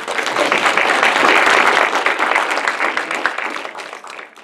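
An audience applauding, building up quickly at the start and dying away near the end.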